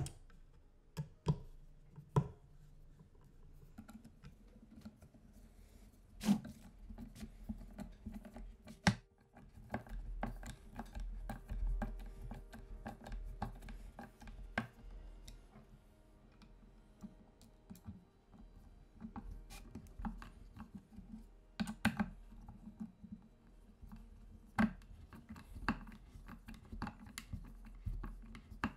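Hand screwdriver driving wood screws into a wooden loom frame: quiet, irregular clicking and scraping of the bit and screw, with a few sharper knocks.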